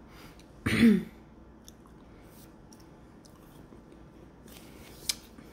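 A short throat-clear about a second in, with a falling pitch, followed by quiet mouth sounds of chewing candy, with faint clicks and one sharp click near the end.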